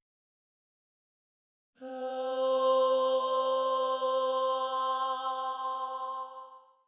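Anime-style 'receiving power from a god' sound effect: a sustained chord of steady tones with a high shimmer on top. It starts suddenly about two seconds in, holds, and fades out near the end.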